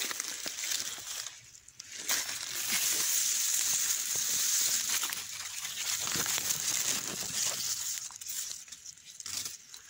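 Dry fallen leaves rustling and crackling as leaf litter is disturbed, louder over the middle few seconds.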